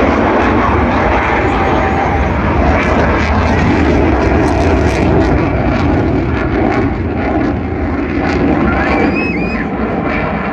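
Eurofighter Typhoon's twin jet engines running in reheat: a loud, steady, low rumbling roar with crackle, easing off slightly in the last few seconds.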